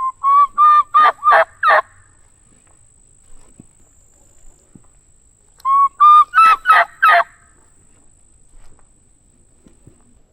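Turkey yelping: two loud series of about six yelps each, a few seconds apart. Each series starts with held, level notes and ends in sharper notes that drop in pitch.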